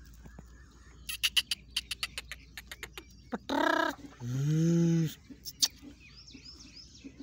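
Young male black francolin calling from its cage: a run of quick, sharp chip notes, then a loud harsh call about three and a half seconds in, followed by a lower drawn-out note lasting about a second.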